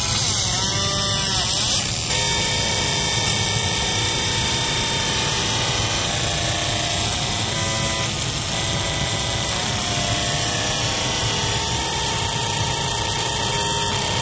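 Bambu Lab Smoke Purifier fan running steadily while a fiber laser engraves anodized aluminum, its galvo scanner whining in tones that keep changing pitch as the beam traces the design.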